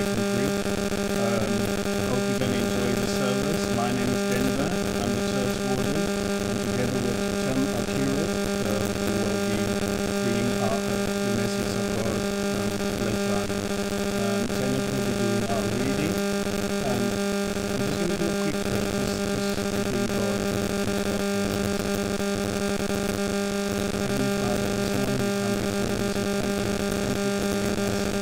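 A steady electronic drone of held tones, low and unchanging throughout, dominating the sound; it has the character of a sustained synthesizer pad or an electrical hum through the sound system.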